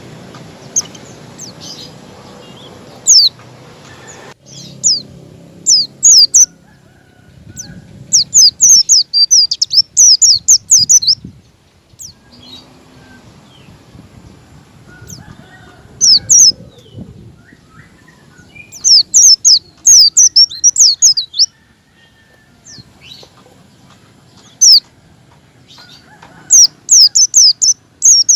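White-eye (pleci) calling: fast runs of high, thin, down-slurred chirps lasting two to three seconds each, three times, with single chirps between. This is wild-style pleci song used as a lure to set off captive birds.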